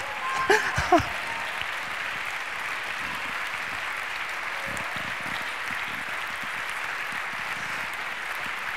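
Audience applauding steadily in a large hall.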